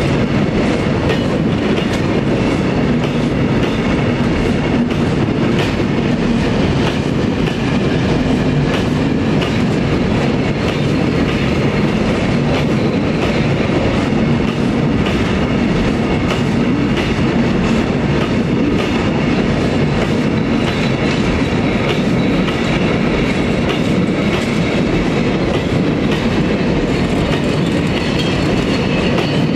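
Loaded freight wagons rolling past at close range, steel wheels running over the rails with a steady roar and a constant clickety-clack over the rail joints. The train is running to scour rust off the rails of a track.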